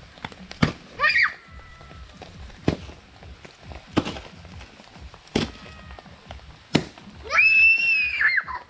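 Wood fire under a banana-leaf parcel of mushrooms, popping and cracking with a sharp crack every second or so and smaller ticks between. A short squeak comes about a second in, and a long high-pitched squeal near the end.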